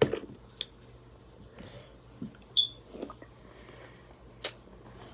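Chewing crunchy Cap'n Crunch cereal close to a phone's microphone: scattered crunches and mouth clicks, the loudest right at the start, with a brief high chirp a little past halfway.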